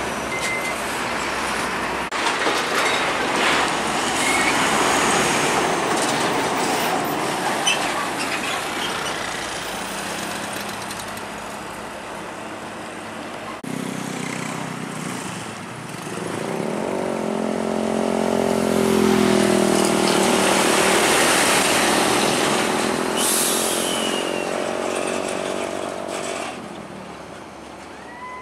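Heavy diesel cargo trucks driving on the road amid traffic noise. About halfway through, a truck's engine comes in loud and close, its note rising and falling as it passes, with a short burst of hiss near the end of that pass.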